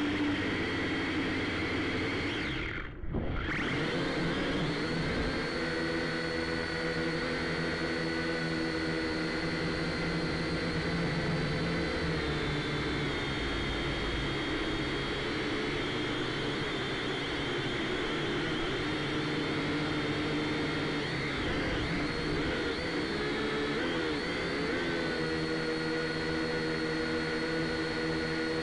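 Small camera drone's electric motors and propellers whining steadily, heard from the drone's own onboard camera. The pitch shifts a few times as it manoeuvres, and the sound briefly drops out about three seconds in.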